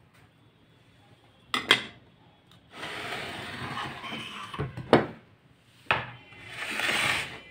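Ceramic dishes knocking and scraping on a bamboo cutting board: a few sharp knocks, the loudest about five seconds in, between stretches of rubbing as a plate of vegetables is set down and slid into place.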